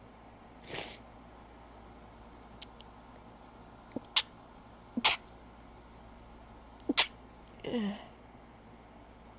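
A woman sneezing three times, short sharp sneezes at about four, five and seven seconds, each with a quick intake just before it. About a second in there is a softer rush of breath, and a brief voiced sound sliding down in pitch follows the last sneeze.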